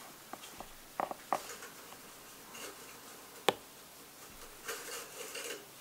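A stylus tapping on an iPad's glass screen: a few light taps in the first second and a half, a sharper tap about three and a half seconds in, then a short run of light scratchy ticks near the end.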